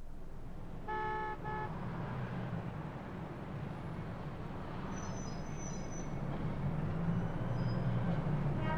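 Street traffic rumbling steadily, with two short car-horn honks about a second in.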